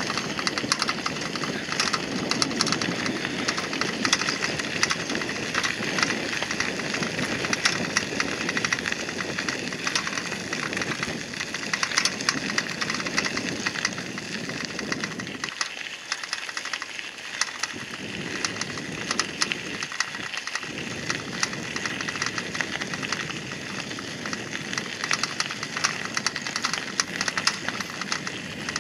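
Bicycle tyres crunching and crackling over a gravel path, with the rattle of the moving bike. The lower rumble fades for a few seconds just past the middle, then returns.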